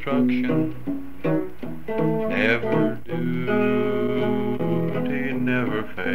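Acoustic guitar playing a run of notes on an old home tape recording, with a steady low hum underneath.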